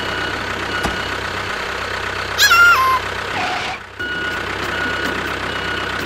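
Truck engine sound effect running steadily under a repeating reversing-alarm beep. A short, loud, squeaky falling cartoon call cuts in about two and a half seconds in, and the sound drops out for a moment near four seconds.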